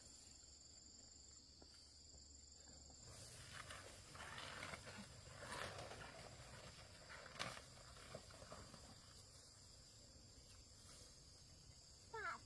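Quiet steady high insect trilling, with faint rustling and a few soft clicks in the middle. Right at the end a cat begins to meow.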